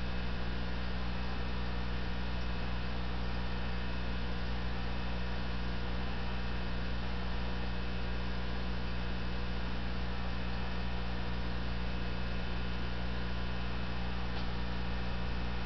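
Steady electrical mains hum: a constant low buzz made of a stack of steady low tones with their overtones, unchanging throughout.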